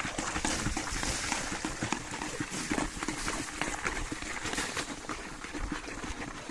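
A hand churning shampoo water in a plastic bucket to whip up lather: fast, irregular sloshing and splashing.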